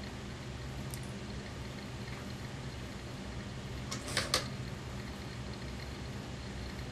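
Steady electric motor hum from an industrial sewing machine running idle, with a quick cluster of three sharp clicks about four seconds in.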